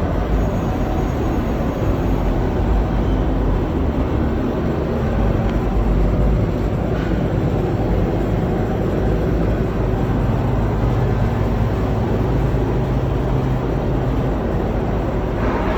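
VITAP BC 92 edge banding machine for curved workpieces running, giving off a steady mechanical hum and whirring noise.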